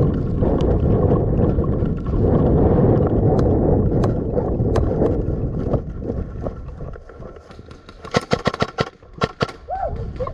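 Loud low rumble of movement and wind noise on a helmet-mounted microphone. About eight seconds in, an airsoft rifle fires a rapid string of shots lasting about a second and a half.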